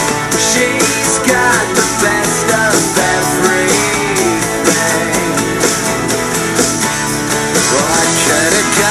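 Background rock music with guitar and a steady drumbeat.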